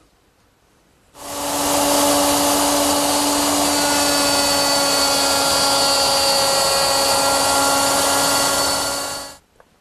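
Plunge router fitted with a straight bit, running steadily with a high whine as it is pushed along its fence on a pass that widens a dado in plywood. It starts about a second in and stops shortly before the end.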